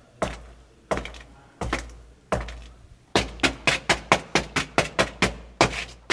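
Foley footsteps in hard police-style shoes: even walking steps, then about three seconds in, quicker steps at about four to five a second.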